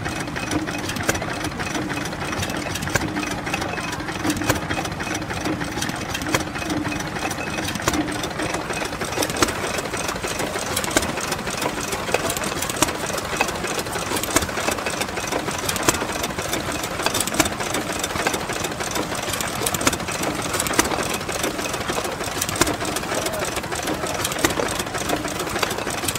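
A 1921 Millars 3 hp petrol sludge pump with an open crank, running steadily with regular knocking beats from the engine, while water gushes from the pump's outlet into a tub.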